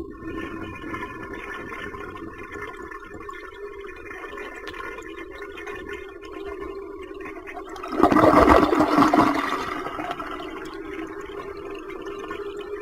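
Toilet flushing, the water rushing and gurgling with a steady whine through it, and a louder gush of water about eight seconds in.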